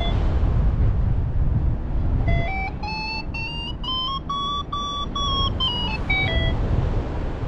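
Paragliding variometer tone, absent for about two seconds, then sounding and stepping up in pitch to a high note before stepping back down and stopping near the end: the climb rate rising then easing in ridge lift. Under it, a steady low wind rumble on the microphone.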